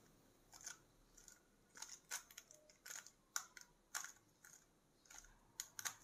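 Faint, quick clicks of a plastic 3x3 speedcube's layers being flicked through a short algorithm with finger tricks, a dozen or so irregularly spaced turns.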